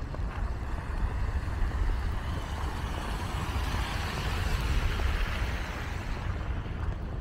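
A car passing on the wet, slushy road alongside, its tyre hiss swelling and then fading over a few seconds, over a steady low rumble.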